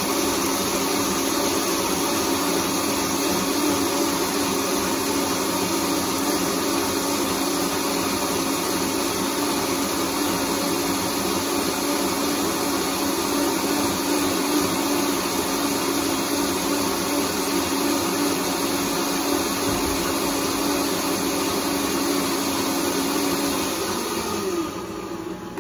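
Countertop blender running at high speed, puréeing boiled chiles into a liquid red sauce: a steady whir with a hum. Near the end it is switched off and spins down, the hum falling in pitch as it fades out.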